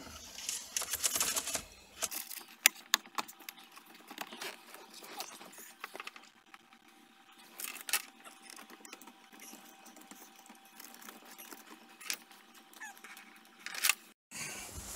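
Scattered small clicks, taps and light rustling of plastic dash trim and wiring being handled, with a few sharper clicks, the loudest about three seconds in.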